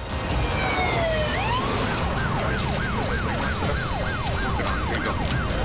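Ambulance siren, first a slow wail gliding down and up, then about two seconds in switching to a fast yelp: a falling sweep repeated about two and a half times a second, over a low rumble.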